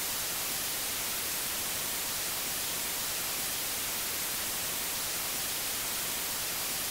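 Steady white-noise static hiss, like an untuned television, even in level and strongest in the high range.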